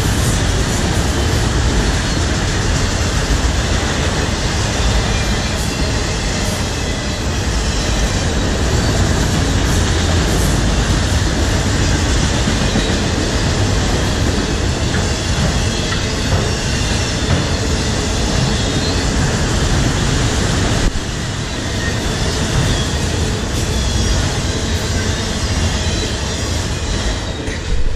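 Freight train of autorack cars rolling past close by: a steady, loud rumble and rattle of wheels on rail, with a faint high wheel squeal running through it.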